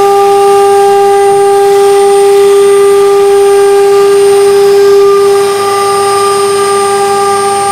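CNC router's high-speed electric spindle whining at a steady pitch while its bit routes into a wood board, with a rushing cutting noise underneath. The sound drops slightly in loudness about five and a half seconds in.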